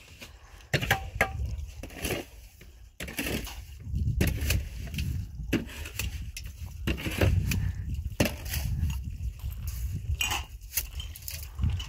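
Irregular knocks and clattering, some in quick runs, over a low rumble.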